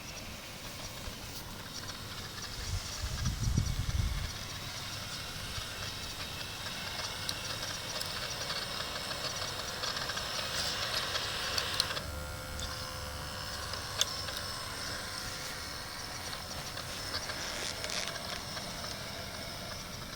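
Radio-controlled model construction machines working, their small electric motors and gearboxes whirring over a steady hiss. A brief low rumble comes about three seconds in. Near twelve seconds the sound turns into a steadier pitched whine, with a sharp click a little later.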